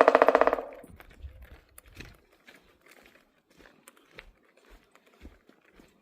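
Pileated woodpecker drumming on a tree trunk: a loud, very rapid roll of beak strikes that cuts off about half a second in, followed by faint scattered taps.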